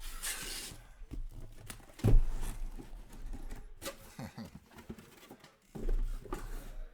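Trading-card packs being ripped open and handled on a table: a short tearing hiss near the start, a loud thump about two seconds in, then scattered rustling and knocks.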